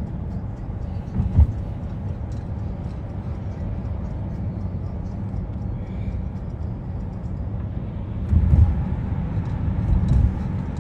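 Steady low road rumble inside a moving car's cabin, with a few louder low thumps from the car going over bumps, one about a second and a half in and two more near the end.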